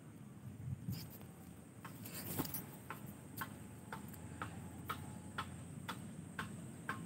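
Footsteps at a walking pace: light, regular clicks about two a second, faint against quiet outdoor background noise.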